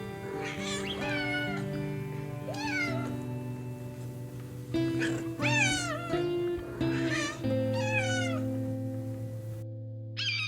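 Domestic cat meowing repeatedly, about seven meows that each rise and then fall in pitch, over background music.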